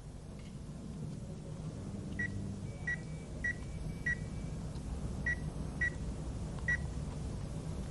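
Seven short, high-pitched beeps at uneven intervals over a low steady hum.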